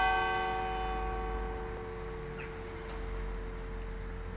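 Church bell of the Basilica of Notre-Dame de Bon-Secours tolling slowly after a funeral. The ring of one stroke dies away, its low hum lasting longest, with wind rumbling underneath.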